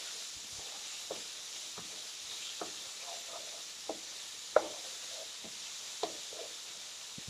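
Spice paste sizzling in hot oil in a cooking pot while a spatula stirs it, knocking and scraping against the pan every second or so, with one louder knock a little past the middle. This is the sauté stage where the paste and ground spices are fried until fragrant and the oil separates.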